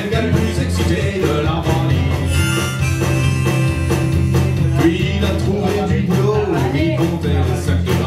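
Live country-blues music: acoustic guitar playing with a melody line of held notes over it, steady and without a break.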